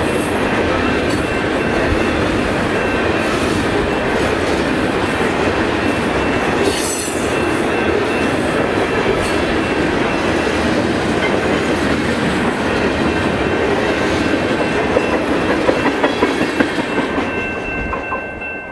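Freight train of tank cars rolling past at speed, a steady roar of wheels on rail with sharper clacks near the end as the last cars cross the rail joints, then the train noise fading away. A level-crossing warning bell rings steadily under it and keeps ringing as the train clears.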